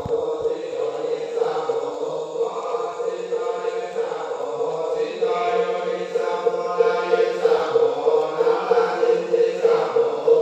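Voices chanting scripture together in a Chinese temple's liam keng sutra recitation, in long phrases over a steady held note, growing a little louder after the middle.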